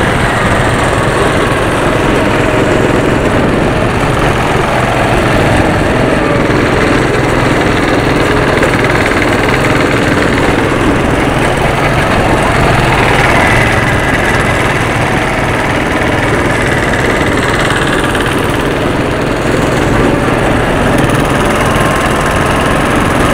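Go-kart engines running loud and steady under throttle, heard from aboard a kart among other karts on the track. A faint higher pitch rises and holds for a few seconds about halfway through.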